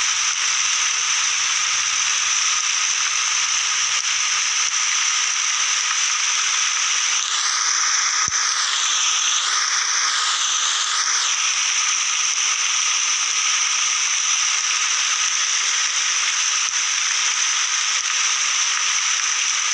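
Rainforest rain ambience: a steady hiss of rain under a continuous high-pitched drone. From about 7 to 11 seconds an animal call rises and falls in pitch over it.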